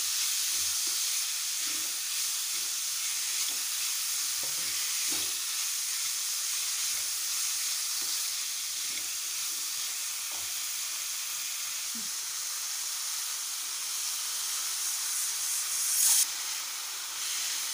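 Diced chicken, carrot and onion sizzling in ghee in a nonstick pan, a steady high hiss, with a wooden spatula stirring and tapping the pan now and then. A brief louder burst comes near the end.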